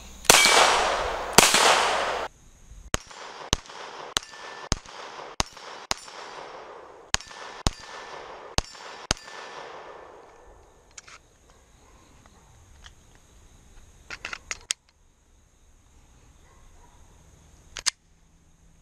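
Glock 44 .22 LR pistol firing. Two loud shots come first, each with a long ringing echo. About ten more follow at a steady pace of roughly one to two a second, then a quick burst of four or five, then one last shot near the end, with metallic clangs from a steel gong target being hit.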